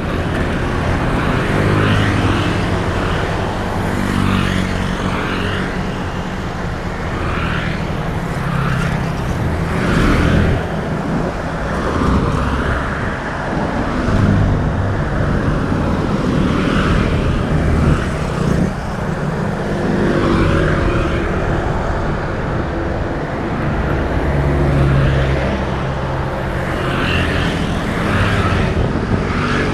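Busy road traffic, with motorbikes and cars passing one after another and engines rising and falling in pitch as they go by.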